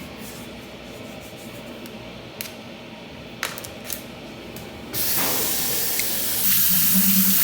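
Tap water running full into a restroom sink: a steady hiss that starts suddenly about five seconds in and grows louder a second and a half later, after a few faint clicks.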